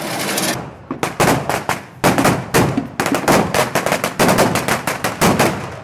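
A string of firecrackers going off in rapid, irregular succession, several sharp bangs a second. Crowd noise comes before them, and the bangs begin about half a second in.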